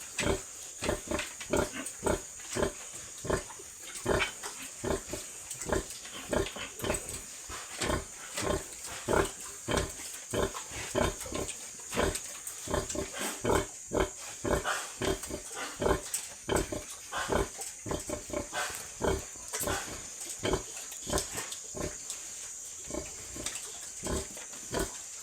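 Pigs grunting in quick, short grunts, about two a second, with a steady high-pitched hiss or buzz underneath.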